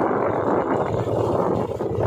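Motorcycle ride heard from the bike: the engine running under a loud, steady rush of wind and road noise.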